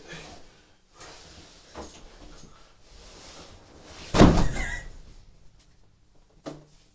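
Duvet and bedding rustling as a person shifts about on a bed, then a loud thud about four seconds in as they flop backward onto the mattress, followed by a short knock near the end.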